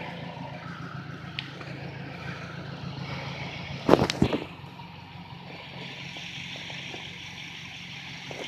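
Chevy Malibu's four-cylinder Ecotec engine idling steadily, freshly fitted with a new intake camshaft actuator (VVT solenoid). A brief cluster of knocks and a rattle sounds about four seconds in.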